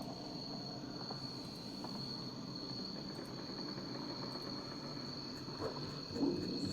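A steady high-pitched whine over a faint hiss, insect-like in character. Soft gliding tones come in near the end.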